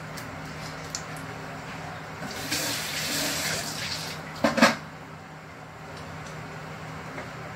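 Water running from a kitchen tap for about two seconds, over a steady low hum, followed by a short loud sound about four and a half seconds in.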